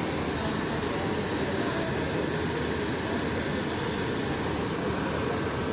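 Steady, even rushing noise of a diesel-hauled passenger train setting off, heard from aboard, with no distinct knocks or tones.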